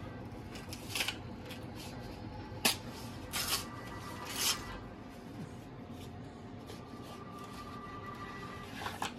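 Plastic food packaging being handled and opened by hand: a handful of short crinkles and rustles, the sharpest about two and a half seconds in.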